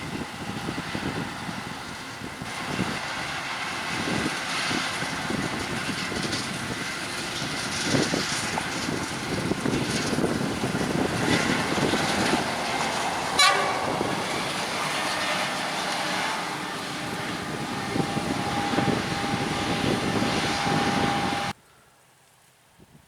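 Forage harvesting machinery at work: steady engine and crop-chopping noise with frequent knocks, and one sharp loud clack about halfway through. A steady high tone joins in near the end, then the sound cuts off suddenly.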